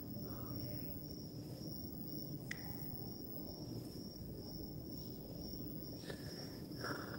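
Quiet background: a steady high-pitched insect trill over a low hum, with a few faint clicks.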